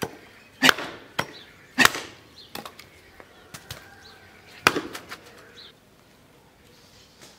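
Hatchet chopping wood on a wooden chopping stump: a string of sharp, irregular blows, the hardest about two seconds and about five seconds in, then only a few light knocks of wood being handled.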